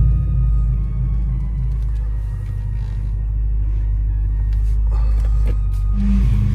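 Steady low rumble of a BMW car driving slowly, heard from inside the cabin, with faint music over it.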